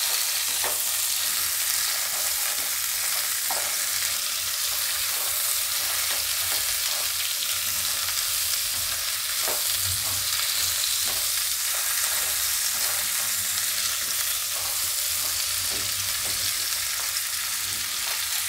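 Cauliflower florets sizzling in hot oil in a nonstick pan while being stirred with a silicone spatula, a steady hiss with occasional soft knocks and scrapes of the spatula against the pan.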